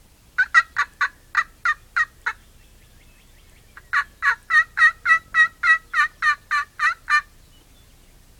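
Turkey yelping: two runs of short, evenly spaced yelps, about three and a half a second, a shorter run of about seven notes, then after a pause a longer, louder run of about twelve.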